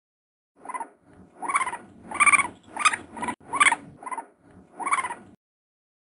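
Raccoon vocalizing: a run of about eight short, pitched calls, roughly one every two-thirds of a second, the middle ones loudest.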